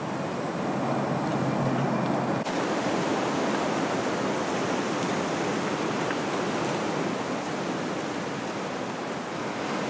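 Steady rushing wind in bare woodland trees, an even noise with no distinct events. It changes abruptly about two and a half seconds in.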